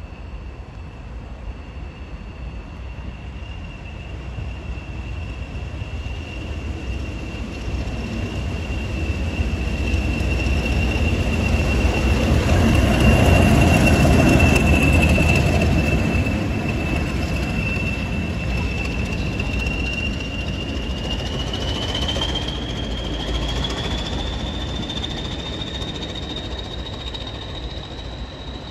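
British Rail Class 20 'Chopper' diesel locomotive running through a station: its engine rumble grows to a peak about halfway through as it passes close by, then fades away. A steady high whistle runs throughout, the Class 20's turbocharger whistle, and climbs in pitch near the end.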